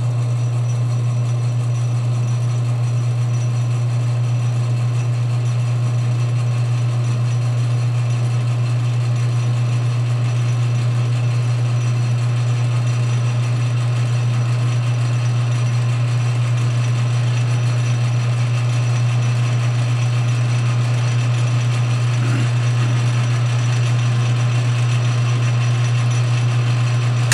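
Metal lathe running steadily under power feed, taking a first turning pass along a Delrin workpiece; a strong, steady low hum from the machine dominates throughout.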